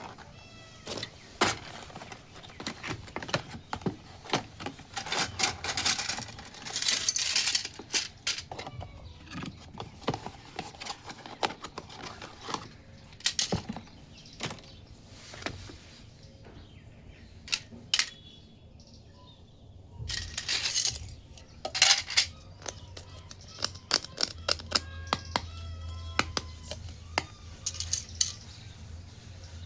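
Small plastic toy kitchen pieces being handled, clicking and tapping against each other and a hard surface, with stretches of plastic packaging crinkling.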